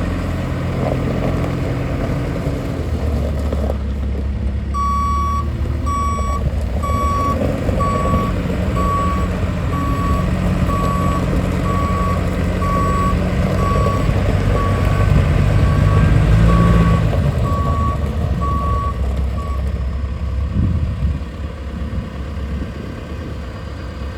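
John Deere 310G backhoe running in reverse, its diesel engine droning under a reverse alarm that beeps about once a second for some fifteen seconds and then stops.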